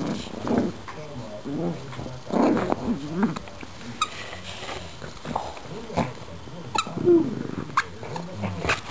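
Two pugs growling in short, irregular bursts as they play tug over a plush toy.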